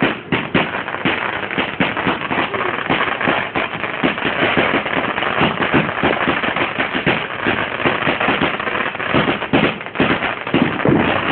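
A "Motor Mouth" consumer firework going off with a dense, continuous run of rapid crackling pops.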